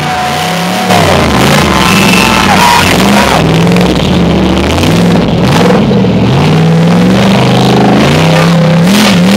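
Rock crawler buggy's engine revving up and down in repeated short bursts, pulling under load as the buggy climbs a steep rock wall.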